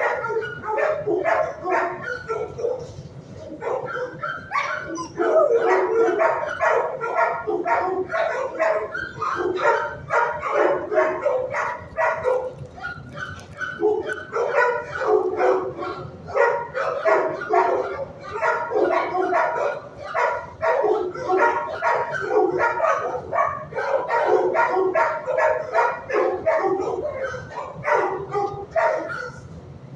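Several shelter dogs in kennels barking continuously, overlapping barks with hardly a break, easing off near the end.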